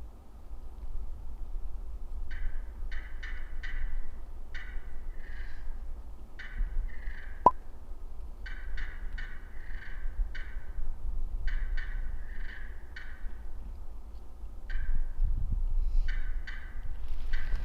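A series of turkey yelps from a hunter's turkey call: runs of three to five short, sharp-edged notes repeated every few seconds. A single sharp click sounds about halfway through.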